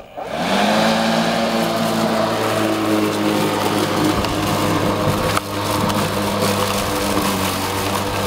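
Sun Joe cordless electric lawn mower switched on, its motor and blade quickly spinning up and then running with a steady hum as it is pushed over grass. The hum dips briefly with a click about five seconds in.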